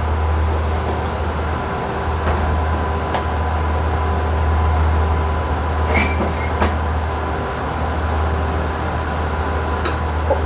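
Steady drone and low hum of a running GatesAir ULXTE solid-state UHF transmitter's cooling fans and power supplies, with a few light clicks as screws go back into a power supply's case.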